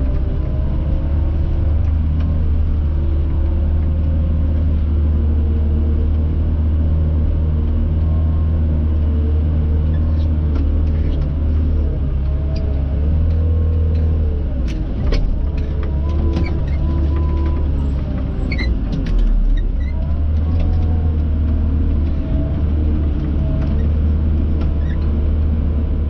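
A front-end loader's diesel engine runs steadily under load while it pushes snow with its bucket. Some clanks and knocks come in the middle, and the engine note dips briefly twice.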